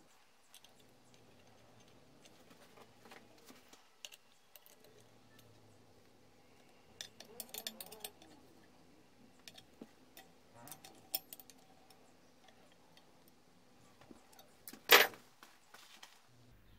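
Small metallic clicks and scrapes of a screwdriver turning a screw into a painted steel mounting plate under a rail anvil, with one sharp, much louder knock near the end.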